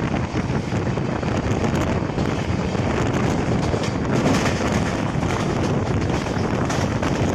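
Steady running noise of a moving express train's LHB coach, with wind rushing over the microphone.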